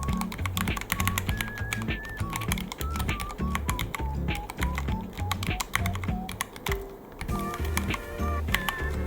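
Rapid, uneven typing on a Ducky One 3 mechanical keyboard, many key clicks a second. Background music with a melody and a bass line plays under it.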